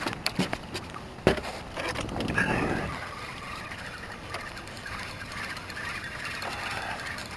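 Knocks and footsteps on a small Gheenoe boat's deck as an angler scrambles up to a rod with a fish on, the loudest a single thump about a second in. After that comes a brief rush of noise, then a steady wash of water against the hull.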